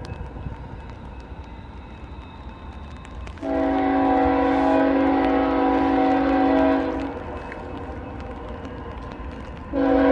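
Approaching locomotive's multi-chime air horn: one long blast of about three and a half seconds a few seconds in, and another blast starting near the end, over a low steady rumble.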